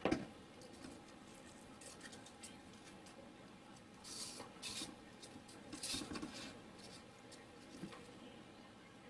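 Small handling noises on a tabletop: a sharp knock at the start, then scratchy rubbing bursts around four to six seconds in as a hand presses a small DC motor and its wire onto a thermocol (polystyrene foam) sheet, with a few light clicks.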